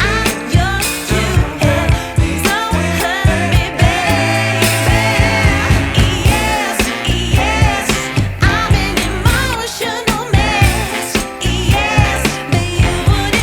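Background song with a sung vocal over a steady beat.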